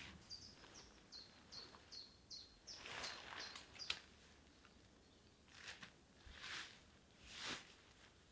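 A small bird singing a quick run of about eight short, high, down-slurred notes over the first four seconds, with faint rustles of tent fabric being spread out and handled.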